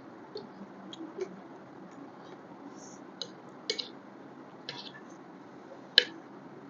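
Close-miked eating sounds of a person chewing chicken: soft wet mouth squishes and clicks, with one sharp click about six seconds in, over a steady low hiss.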